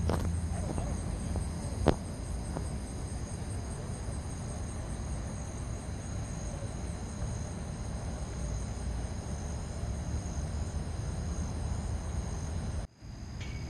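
A night chorus of crickets trilling steadily in several high pitches over a low outdoor rumble. A single sharp click comes about two seconds in, and the sound drops out briefly near the end.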